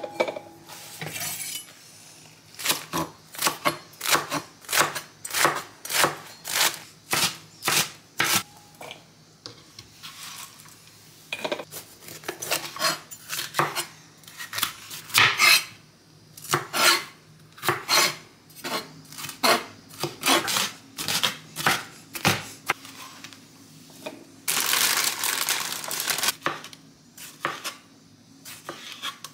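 Chef's knife chopping red bell pepper and tomato on a cutting board: sharp knocks of the blade on the board, roughly one or two a second, with clinks of ceramic bowls at the start. Near the end comes about two seconds of rustling.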